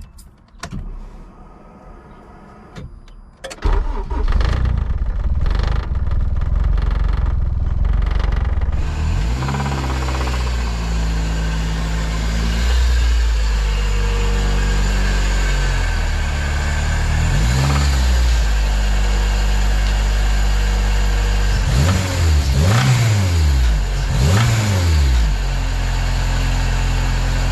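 Turbocharged Honda K24 four-cylinder, in an engine with a spun rod bearing, starting about three and a half seconds in after a few clicks and then idling. The throttle is blipped several times, with short rises and falls in revs, three quick ones near the end.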